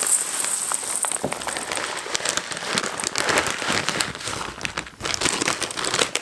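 Birdseed being poured out of a plastic bag: a dense run of many tiny ticks, like fine rain, with the bag crinkling.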